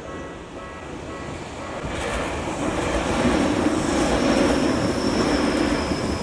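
Japanese level-crossing warning bell ringing in a steady rhythm, then a Tokyu Toyoko Line electric train coming through. The train noise swells from about two seconds in, with a thin high whine over it in the second half.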